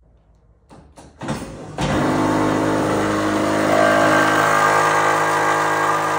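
Pop-up headlight motor of a Pontiac Trans Am running with a loud, steady pitched hum over a rough rasp, starting about two seconds in after a couple of clicks. The sound is typical of stripped nylon headlight-motor gears.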